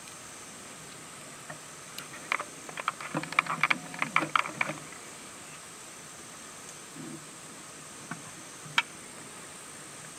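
A steady high-pitched insect chorus in the background. About two seconds in comes a cluster of sharp clicks and rustling close to the microphone, lasting about three seconds, with a single click near the end.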